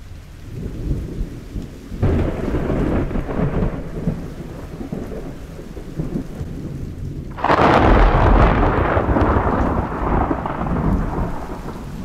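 Thunder: a rumbling peal starts suddenly about two seconds in, then a louder, sharper clap about seven and a half seconds in rumbles on and slowly fades.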